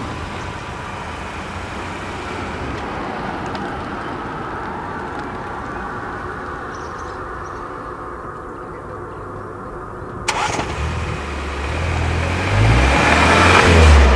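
Cars moving at low speed: a steady low rumble of engine and tyre noise, a sharp click about ten seconds in, then a swell of engine and tyre noise that is loudest near the end.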